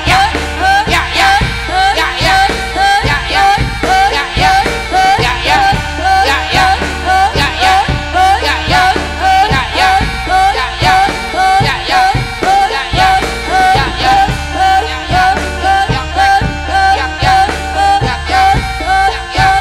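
Loud traditional Javanese jaranan accompaniment music: drums and pitched percussion playing a steady, repeating beat.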